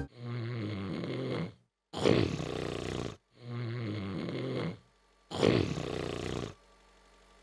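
Cartoon snoring voiced for a sleeping animated car: four slow snoring breaths in turn, a softer one then a louder one, twice over.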